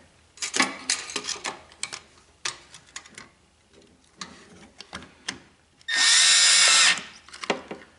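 Clicks and rattles from handling the plastic junction box and its wiring, then a Milwaukee cordless drill/driver runs with a steady whine for about a second, driving a screw in the snowblower's light assembly.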